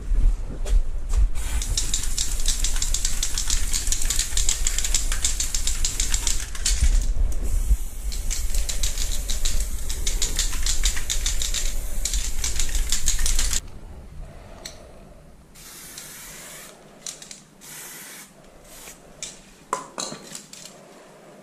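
Aerosol spray paint can spraying onto a wall in long, steady hissing passes with a low rumble beneath, broken briefly about halfway. After a sudden drop in level, only a few soft clicks and short spray bursts remain.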